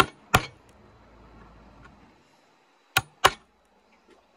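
Hammer striking a chisel, chopping a hinge mortise into a wooden window frame: two pairs of sharp blows, one pair right at the start and another about three seconds in.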